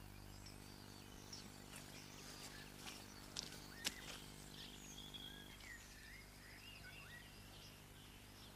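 Quiet outdoor ambience: faint birdsong chirps over a low steady hum, with two faint clicks about three and a half seconds in.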